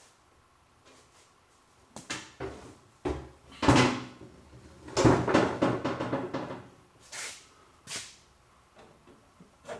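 Gas tank being worked up into place under a car, knocking and rattling against the underbody. The knocks come in bunches: a few at about two seconds in, a loud knock at three and a half seconds, a longer rattling clatter from five to six and a half seconds, then two single thumps.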